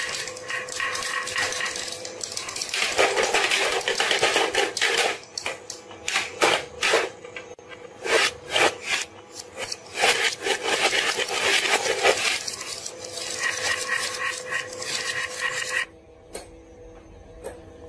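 Glass marbles rolling and clattering over a plastic fishing-game toy board, with many rapid sharp clicks as they hit the plastic and drop into its holes, over a steady hum. The clatter comes in surges and drops away near the end.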